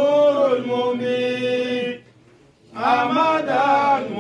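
A man chanting in long, drawn-out held notes, in two phrases with a short breath between them about two seconds in.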